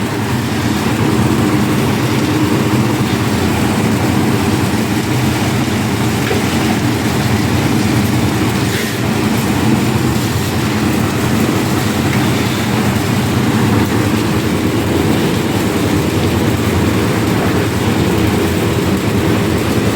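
Concrete lift mixer machine's engine running steadily under load, a continuous mechanical drone with no breaks.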